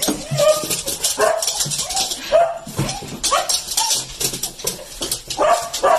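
A husky-type dog giving repeated short yelping barks and whines, about two a second, with a short pause before the last few. Sharp clicks come between the calls.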